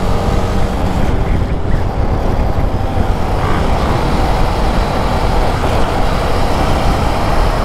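Steady riding noise from a KTM 250 Adventure on the move: wind rushing over a helmet-mounted microphone over the running of the bike's single-cylinder engine.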